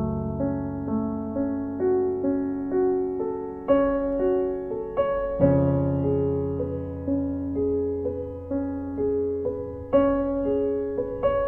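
Solo piano music: a steady stream of single notes over deep bass notes that change every few seconds.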